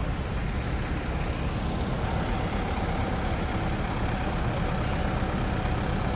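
A city bus's diesel engine running steadily, a low rumble with a faint steady whine joining in about two seconds in.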